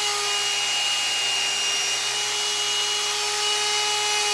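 Hot-air brush (blow-dryer brush combo) running on its high setting: a steady motor whine over rushing air, with no change in speed.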